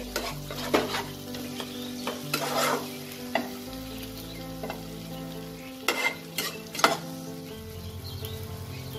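A spatula stirring and scraping a thick fried onion–tomato masala around a cooking pan, the paste sizzling in oil that has separated at its edges, the sign the masala is fully fried. Several sharp scrapes of the spatula against the pan stand out, two close together around six to seven seconds in.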